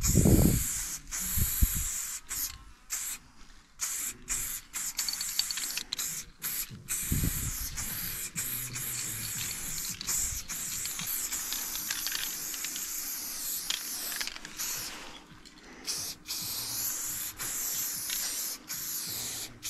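Aerosol spray paint can spraying lines onto a wall: short stop-start hisses at first, then longer steady strokes with brief breaks between them. A few low thumps come near the start.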